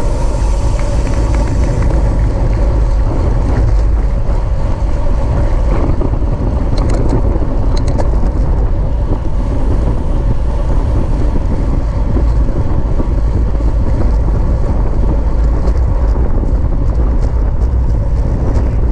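Wind buffeting the microphone of a camera riding on a racing bicycle at speed in a criterium: a loud, steady low rumble of rushing air. Short runs of light ticking come through about six to eight seconds in and again near the end.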